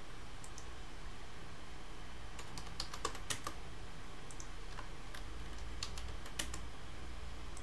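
Computer keyboard keystrokes and mouse clicks: scattered sharp taps in a few short bunches, over a low steady hum.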